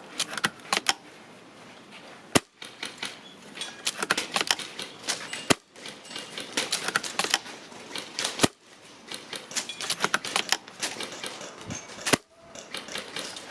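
A spring-piston airsoft bolt-action sniper rifle (Tokyo Marui VSR-ONE) fired four times, about three seconds apart, each shot a sharp snap. Between shots come quick runs of small clicks as the bolt is worked and the rifle handled.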